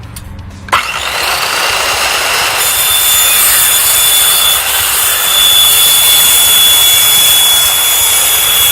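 Electric power saw starting up about a second in and cutting across a Rapid Wall skirting panel: a loud, steady whine over cutting noise that stops at the very end.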